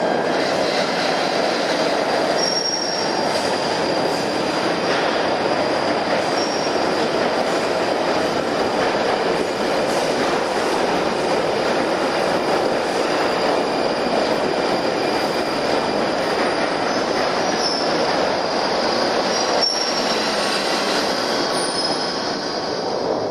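London Underground Northern line 1995 Stock train running into a tube platform and slowing to a stop: a loud, steady rumble of wheels on rail, with several brief high-pitched wheel squeals.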